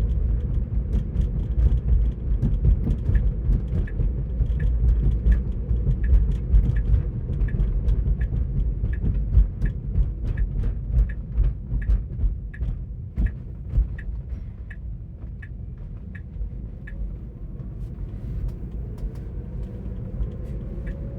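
Road and tyre rumble inside a Tesla Model 3's cabin at highway speed, with the turn-signal indicator ticking about twice a second through the middle of the stretch. The rumble eases off somewhat in the second half.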